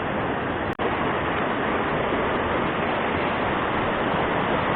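Fast-flowing river current rushing steadily, a dense even hiss that drops out for a split second under a second in.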